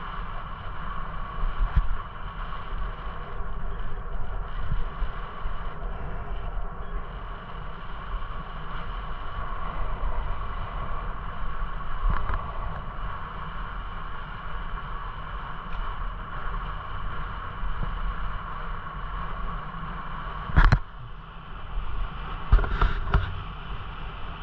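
Steady rolling and wind noise of a bicycle riding on a paved path, with a sharp knock about 21 seconds in and a short cluster of knocks a couple of seconds later.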